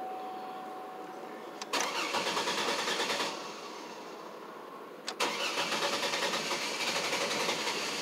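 A 2003 Chevrolet Trailblazer's engine being cranked by the starter in two tries without catching: a short burst of fast, even cranking about two seconds in, a pause, then cranking again from about five seconds in. It is a hard start, which the owner puts down to a fuel problem made worse by the truck sitting.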